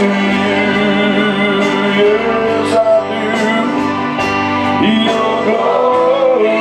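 Live gospel worship music: held instrumental chords with singing over them.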